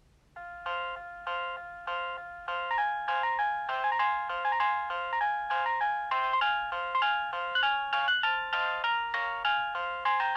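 An Alcatel OT 735 mobile phone playing one of its built-in polyphonic ringtones, a synthesized melody with several notes sounding together over a repeated low note about twice a second. It starts just after the beginning and gets louder over the first few seconds.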